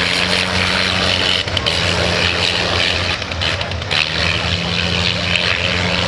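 Propeller aircraft flying past, its engine giving a steady droning note over heavy noise. The engine is the 160 horsepower rotary of a reproduction Sopwith Camel.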